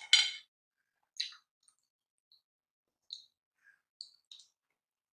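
Close-up mouth sounds of eating soft, seedy fruit pulp off a spoon: short wet smacks and clicks, the loudest just after the start, then a few fainter ones spaced a second or so apart.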